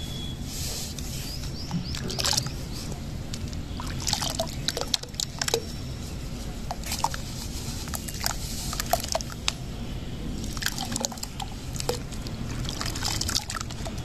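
Water splashing, dripping and sloshing as hands crumble and squeeze soaked sand-and-cement chunks in a tub of water, in irregular wet bursts.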